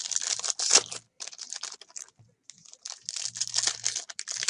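Foil trading-card pack wrappers crinkling and tearing as packs are opened and handled, in uneven bursts with short pauses.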